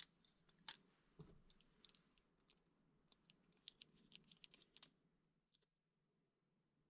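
Faint metallic clicks and ticks from the steel parts of a c.1902 crank-wound Kurbelspanner airgun's cocking and trigger mechanism, springs removed, as it is handled and worked. There is a soft knock about a second in and a quick run of small clicks in the middle.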